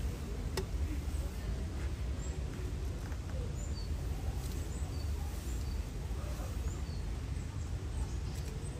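Steady low rush of water from a small cascade into a pool, with short high bird chirps repeating throughout and a single sharp click about half a second in.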